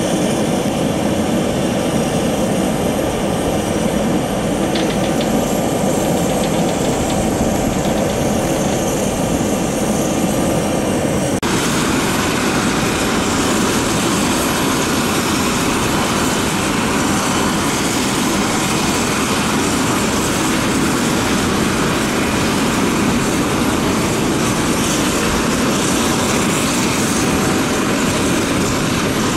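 Jet airliner engines running with a loud, steady noise. About eleven seconds in the sound changes abruptly and turns brighter and more hissing.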